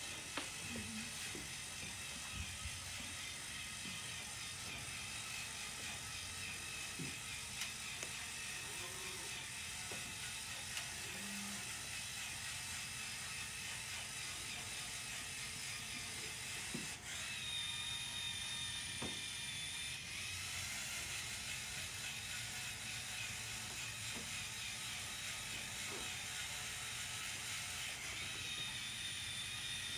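Small electric motors and gears of a tracked hobby robot whirring as it drives and works its arm, with scattered clicks. A higher motor whine joins about halfway through, fades a few seconds later, and returns near the end.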